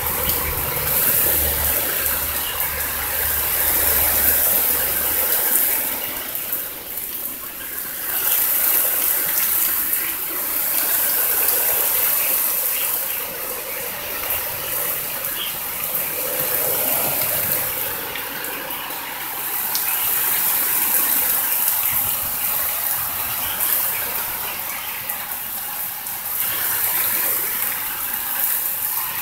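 Heavy rain and gusting wind of a severe thunderstorm squall line, swelling and easing every few seconds. A low hum runs under it for about the first five seconds, then stops.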